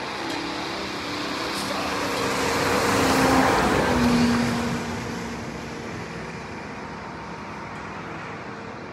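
A motor vehicle passing by. Its noise swells to a peak about three to four seconds in, its engine tone drops in pitch as it goes past, and then it fades.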